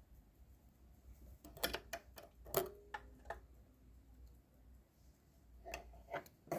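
Scattered clicks and light knocks from a Pfaff 204 sewing machine as its parts are handled and adjusted by hand. A few come close together about a second and a half in, and more come near the end; the machine is not running.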